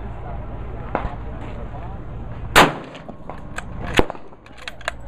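A scoped bolt-action rifle chambered in .308 Winchester fires a single shot about halfway through: one sharp, loud crack with a ringing tail. About a second and a half later the bolt is worked, ejecting the spent case, with a sharp clack and a few fainter cracks around it.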